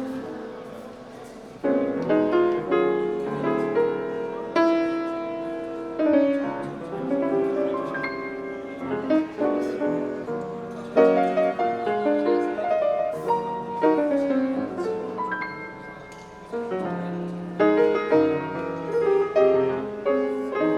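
Slow lounge jazz: piano playing chords and melody over a bass line.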